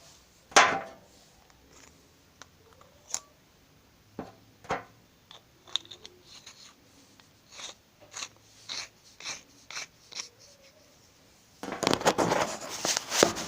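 A small flashlight being screwed back together by hand after loading its three AAA batteries. Scattered clicks and knocks of the parts, the loudest about half a second in, then a dense run of rapid clicking and scraping near the end.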